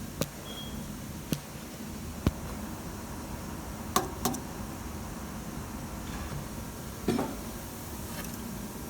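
A faulty relay clicking at irregular intervals: about six sharp clicks, two of them close together, over a steady background hiss.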